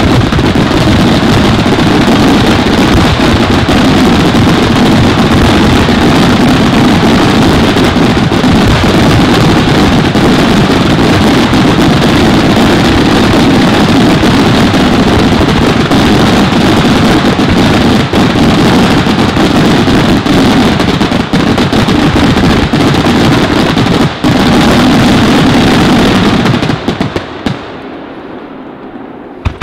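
Aerial firework shells bursting in a dense, continuous barrage of bangs and crackling, very loud. It thins out and dies away about three seconds before the end, with one last bang near the end.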